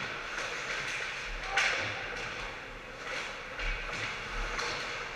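Ice hockey game sounds echoing in a large arena: skates scraping on the ice under a steady wash of noise, with one sharp clack from stick and puck about a second and a half in.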